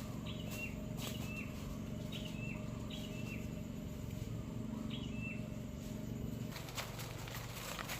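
A bird repeating a short call, a quick rising note that drops to a brief whistle, about six times over the first five seconds, above a steady low hum. A few clicks and rustles near the end.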